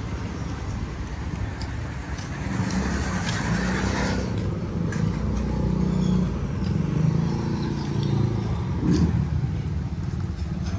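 Street traffic: a motor vehicle engine running nearby, a steady low drone, with faint scattered clicks above it.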